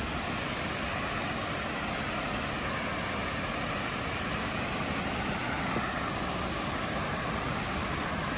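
Steady vehicle running noise: an engine and rumble, even throughout with a slowly shifting tone and no distinct knocks or bangs.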